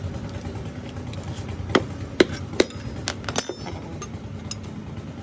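A few sharp metallic knocks and clinks, about five in under two seconds, the last ones ringing briefly, over a steady low background rumble.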